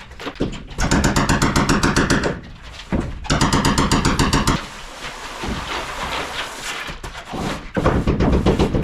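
Power driver backing screws out of wall plywood. It runs in two bursts of about a second and a half, each with a fast, even rattle, and a shorter burst comes near the end.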